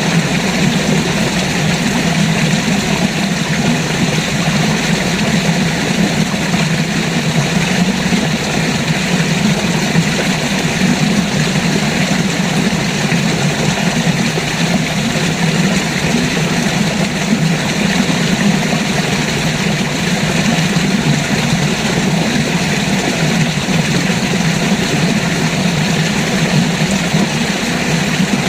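River water flowing steadily, a loud, even wash of water noise with no change.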